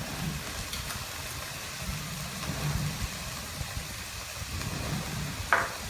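Minced pork stir-frying in a pan over a steady low rumble, with a faint even sizzle.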